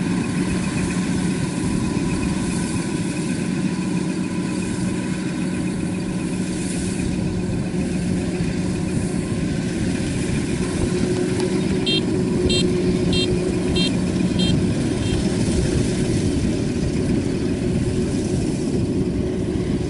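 Kubota DC-93 combine harvester's diesel engine running steadily, its note shifting partway through. About twelve seconds in, a machine beeper sounds about six short, evenly spaced high beeps.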